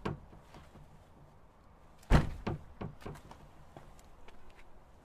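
A heavy thump about two seconds in, followed by a few lighter knocks.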